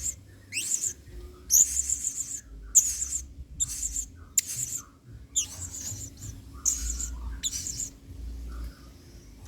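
Male blue-crowned hanging parrot (serindit) calling: about eight short, shrill, very high chirping bursts in quick succession, then a pause near the end.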